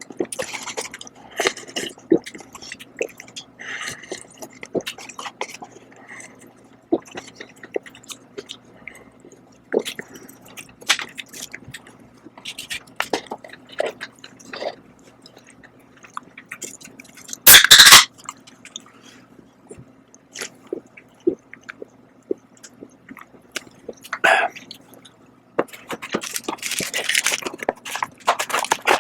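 Close-miked eating of Shin Ramyun cup noodles: chewing with scattered small mouth clicks and utensil scrapes. A single short loud burst comes about two-thirds through, and a longer noisy stretch comes near the end.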